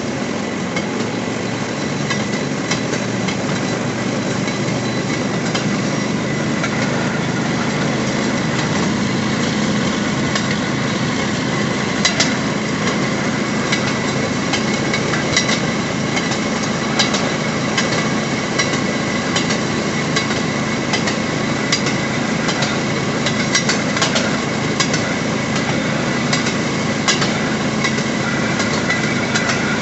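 Railroad speeder running along the track: its small engine's steady drone, with sharp clicks from the wheels over rail joints at irregular intervals.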